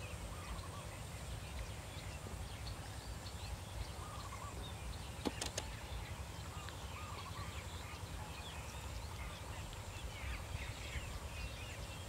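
Field ambience of many small birds chirping and calling over a steady low rumble of wind. Two sharp clicks come a little over five seconds in.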